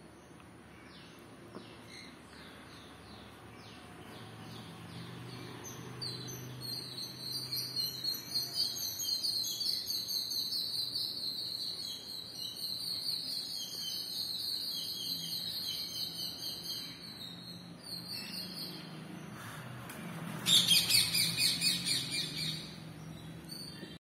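Green parrots calling: a long run of rapid, high chirps through the middle, then a louder burst of chirps near the end.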